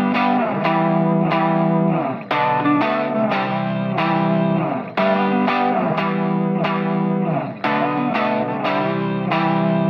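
Background music on electric guitar with effects, notes plucked in a steady repeating pattern over a held low note.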